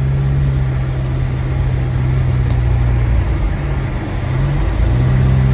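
Car engine running with tyre and road noise while driving through deep snow without chains, heard from inside the cabin. The engine note drops for a moment about three seconds in and picks up again near the end.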